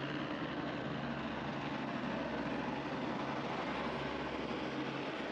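Steady background noise with a faint low hum and no distinct events.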